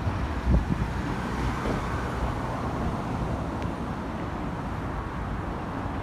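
Steady rumble of road traffic outdoors, with a couple of low thumps on the microphone about half a second in.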